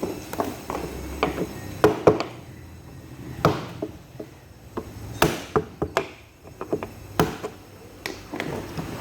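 Hammer blows on a chisel cutting into a washing machine's stainless steel drum, struck at an irregular pace. Some blows fall in quick pairs, and the loudest come about two, three and a half and five seconds in.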